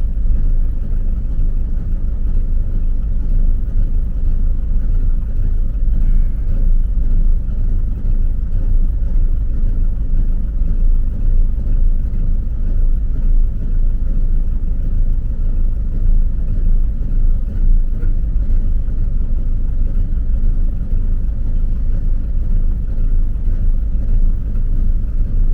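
Camper's V8 engine, which the owner believes is a 460 big block, idling on its own after a cold start in extreme cold. It runs really rough, its level wavering unevenly; the owner puts this down to the cold and oil thickened by it.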